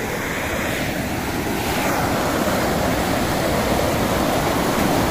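Steady rush of river water spilling over a low concrete weir.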